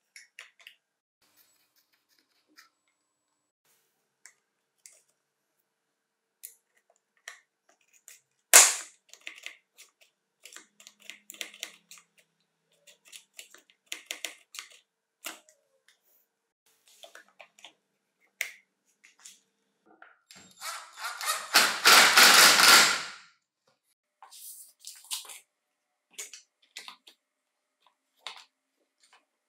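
Small clicks and taps of plastic and metal chainsaw parts being fitted by hand during reassembly of the carburetor throttle linkage and handle. One sharp snap comes about a third of the way in, and a loud rubbing noise lasting a couple of seconds comes about three quarters of the way through.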